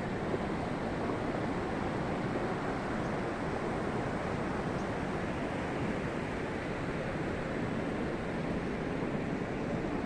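A flooded mountain stream rushing steadily, its muddy water carrying glacier ice and rock debris.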